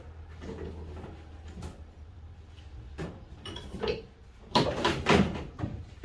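A few separate knocks and clunks of metal scrap parts being handled and set down, the loudest a little past halfway, over a faint low steady hum.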